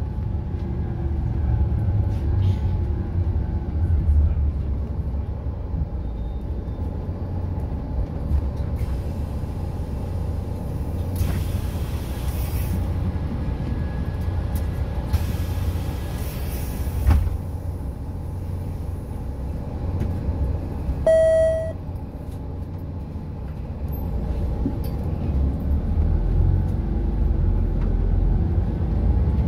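Inside a 2012 Volvo 8900 B7RLE city bus moving slowly, its 7-litre diesel engine gives a steady low rumble. There are two long hisses of compressed air around the middle, and a short electronic beep about two-thirds of the way through.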